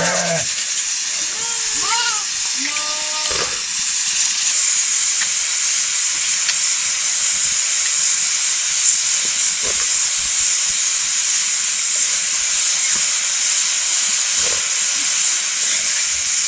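A steady high hiss throughout. A high voice makes a few short, gliding sung notes in the first three or four seconds.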